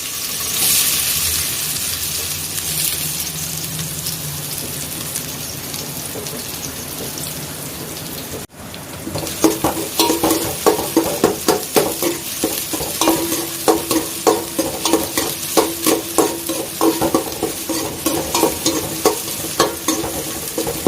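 Crushed shallots sizzling as they fry in hot sesame oil. After a short break about eight seconds in, a spatula stirs and scrapes against the pan, about two or three ringing strokes a second, over the sizzle.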